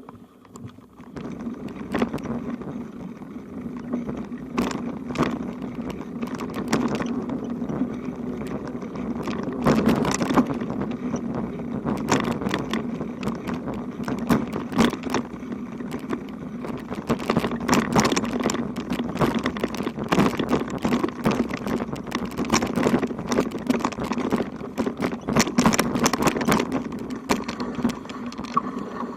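A bicycle rolling over a rough road: a steady rumble with many irregular rattles and knocks.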